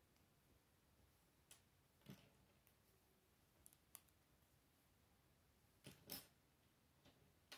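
Plastic Lego plates clicking as they are handled and pressed together, with a handful of short, sharp clicks spread out; the loudest pair comes about six seconds in, as a small plate is snapped onto a long one.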